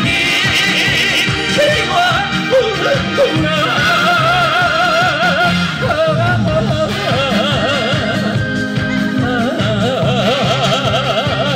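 Music of a Korean song in a break between sung lines: a wavering lead melody with strong vibrato over a steady backing beat.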